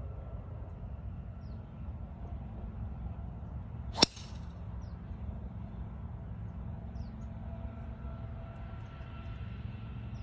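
Golf driver striking a ball off the tee: one sharp crack about four seconds in, over a steady low background rumble.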